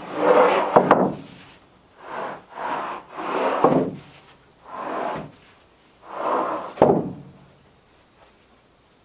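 Sawn wooden boards sliding and scraping across a stack of lumber, five strokes over about seven seconds, several ending in a sharp knock of wood on wood.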